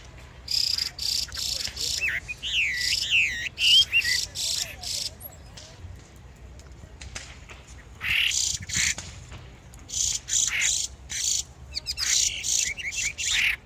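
Small songbirds singing and chirping: rapid runs of short, high, sharp notes mixed with quick sweeping whistles. The song comes in two busy spells with a quieter few seconds in the middle.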